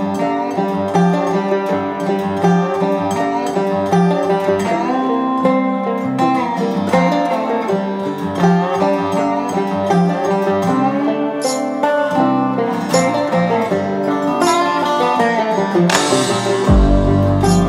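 Background music: an upbeat plucked-string instrumental in a country style. Near the end, a fuller, louder section with a low bass comes in.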